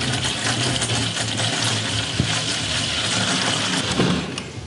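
Water poured from a plastic gallon jug into a plastic 5-gallon bucket through a hole in its lid, a steady pouring stream that tails off near the end.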